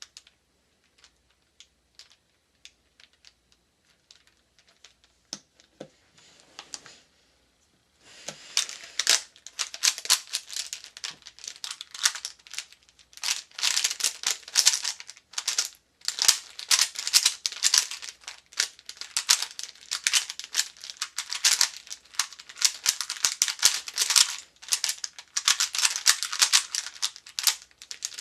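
Rubik's brand 3x3 cube turned fast in a speedsolve: a dense run of plastic clicking and rattling that starts about eight seconds in, after a few scattered light clicks.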